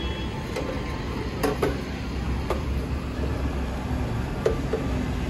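Steady low rumble of a machine running, with a few sharp clinks of metal parts being handled and washed in a tray of diesel, twice in quick pairs.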